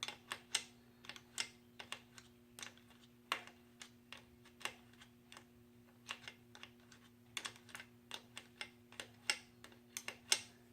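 Irregular sharp metallic clicks, about two or three a second, of a wrench working on the motorcycle's rear axle and chain adjusters, over a steady low hum.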